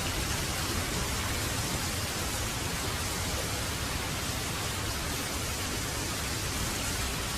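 Steady rain falling, a constant even hiss with a low rumble underneath.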